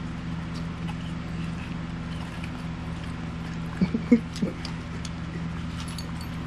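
Two small dogs chewing and mouthing pieces of watermelon taken from a hand, with faint wet clicks, over a steady low hum. About four seconds in come three quick short vocal sounds.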